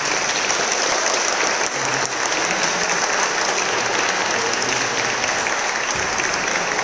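A church congregation applauding steadily: many people clapping at once.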